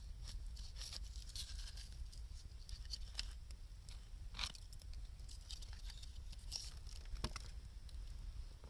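Wood fire of scrap 2×4 lumber and scavenged wood crackling, with irregular sharp pops and snaps over a steady low rumble.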